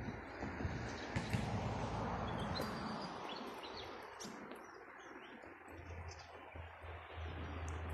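Wild birds chirping and whistling in short calls over a steady hiss, with a low hum coming in a little past halfway.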